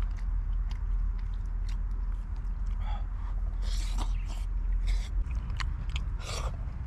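A man slurping and chewing noodles in short bursts, with chopsticks clicking against a metal plate, over a steady low rumble.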